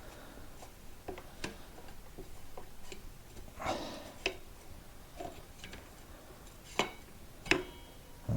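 Small metal parts clicking and tapping as they are handled, with a brief rustle about halfway through and two sharper metallic clinks that ring briefly near the end.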